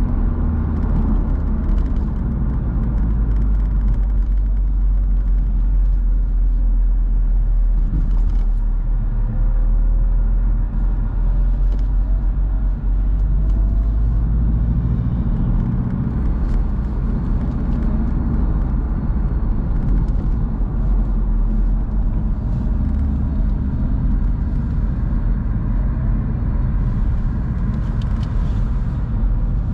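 A BMW roadster being driven: a steady, loud low rumble of engine and road noise, the engine note shifting with the revs.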